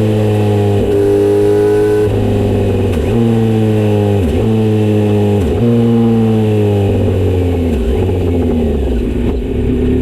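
Kawasaki GPZ900R's inline-four engine running through a Misty Kintaro short exhaust with a 70 mm silencer while riding. Its note eases slowly lower, with several brief sharp dips in pitch that recover at once, and it turns rougher and lower near the end.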